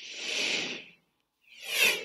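Two whoosh sound effects accompany a TV news graphic transition. The first swells and fades over about a second; the second, shorter one sweeps through near the end.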